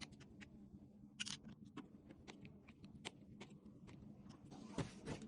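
Faint, scattered small clicks and taps of hands handling small parts, with a sharper tick about a second in and a louder rustling clatter starting near the end.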